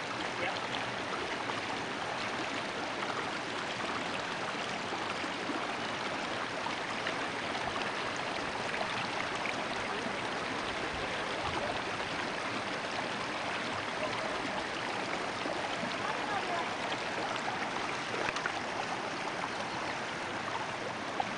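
Water of a small rocky creek running steadily over stones, an even rushing noise.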